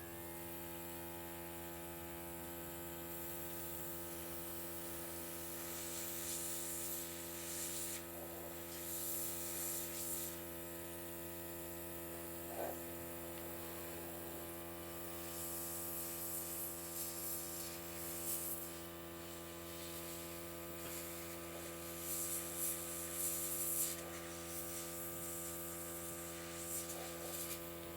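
Small airbrush compressor running with a steady electric hum, with the airbrush hissing in several spraying bursts, the longest from about a quarter to two-thirds of the way through.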